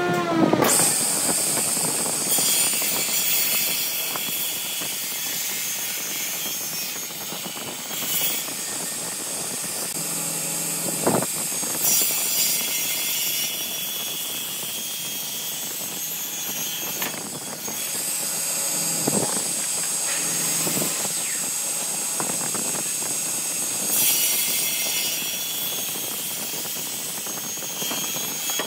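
Table saw with a toothed circular blade cutting through a glued-up stack of hardwood blocks: a steady, noisy cutting hiss with a high whine, rising and falling a little in loudness as the wood is fed. The blade's pitch drops at the start as it bites into the wood.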